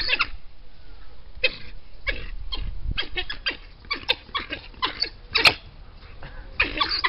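African wild dogs (painted dogs) giving rapid, high-pitched twittering calls: strings of short chirps and squeals with brief pauses, as they compete over food.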